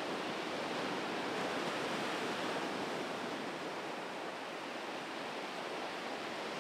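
Small ocean waves washing up onto a sandy beach: a steady surf hiss with no distinct crashes.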